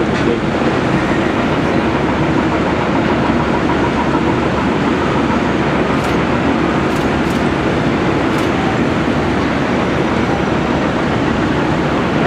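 Link-Belt 330LX tracked excavator's diesel engine running steadily under hydraulic load as it digs and moves dirt, with a few faint clicks about halfway through.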